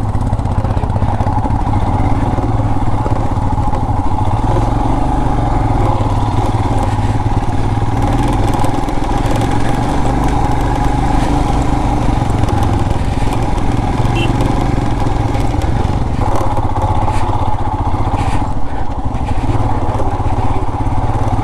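Royal Enfield Himalayan 411's single-cylinder engine running steadily as the motorcycle is ridden over a rough, broken road.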